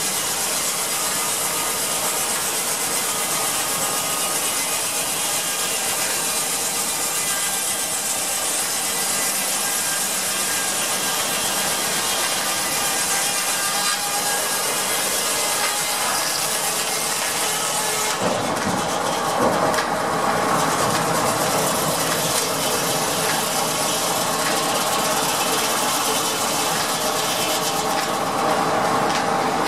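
Steam-powered sawmill running: line-shaft pulleys and flat belts turning, driven by a one-cylinder steam engine. A steady, dense high hiss dominates until about two-thirds of the way through, when it drops away suddenly and leaves a lower, fuller running sound.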